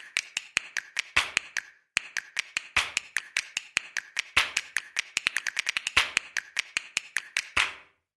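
Rapid series of sharp clicks or taps, about five or six a second. They pause briefly about two seconds in and stop shortly before the end.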